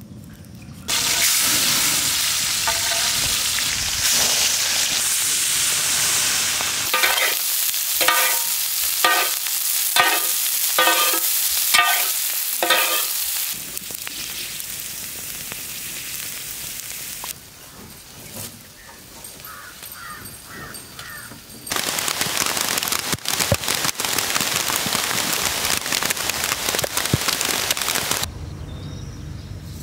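Meat sizzling on a grill over a fire, in loud steady hiss. In another stretch heavy rain falls steadily. Between them comes a run of short pitched sounds about every two-thirds of a second.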